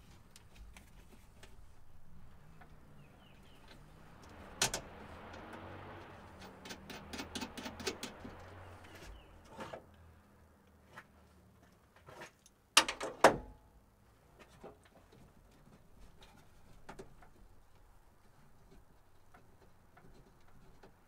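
Hand tools at work on a truck's starter: scattered clicks, a run of quick clicks in the first half, then two loud knocks half a second apart a little past halfway.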